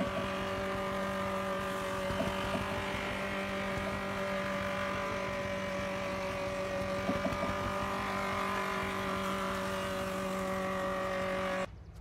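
Steam-driven sawmill machinery running: a steady mechanical hum holding several even tones, with scattered light clicks and knocks. It cuts off suddenly just before the end.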